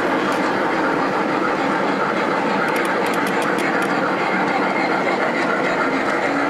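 A G scale model steam locomotive and its train rolling past on the track, a steady running noise with a run of light clicks about three seconds in.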